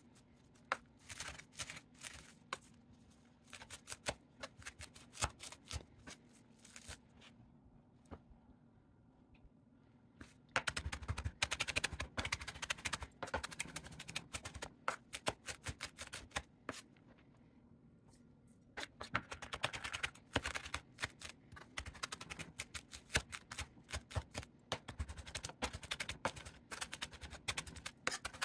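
Chef's knife chopping fresh parsley on a wooden cutting board: scattered knife strokes at first, then rapid runs of sharp chopping knocks from about ten seconds in, with a brief pause a little before twenty seconds.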